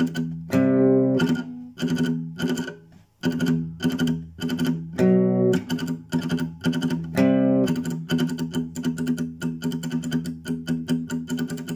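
Nylon-string classical guitar fitted with a homemade compensated bridge saddle, strummed in a fast, choppy rhythm of short strokes. The strokes are broken by three longer ringing chords, about half a second in, about five seconds in and a little after seven seconds. From about eight seconds in, the strokes come in a quick steady stream.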